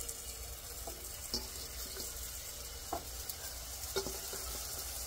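Raw ground-beef patties going into hot olive oil in a nonstick skillet, frying with a steady sizzle, with several brief knocks as they are set down in the pan.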